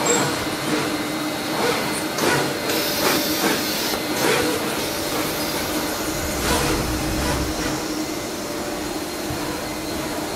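Steady machine hum and hiss of a surface-mount (SMT) assembly line's pick-and-place machines running, with a few steady tones and scattered short clicks and rattles in the first half.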